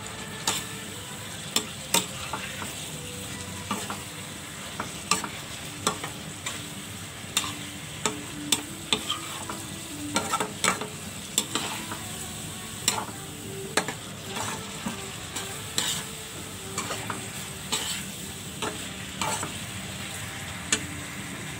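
Tofu in oyster sauce sizzling in a wok as a metal spatula stirs it, scraping and clinking against the pan at irregular intervals, roughly once a second.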